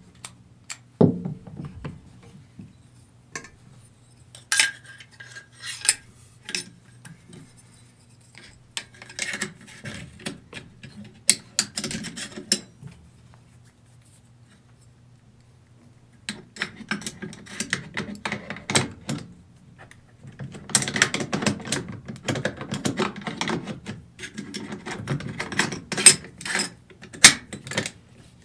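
Del Ton AR-15 rifle parts being handled and fitted together during reassembly: metal clicks, scrapes and rattles. It goes quiet for a couple of seconds around the middle, then the handling gets busier, with several sharp clicks near the end.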